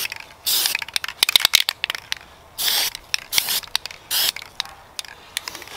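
Aerosol spray-paint can sprayed in about four short bursts of hiss, under half a second each, with scattered sharp clicks between them.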